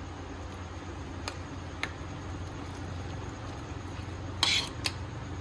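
Beaten curd poured onto leftover rice in a glass bowl and stirred in with a steel spoon: faint wet mixing with a few light clicks of the spoon against the glass, and a brief louder scrape about four and a half seconds in, over a steady low hum.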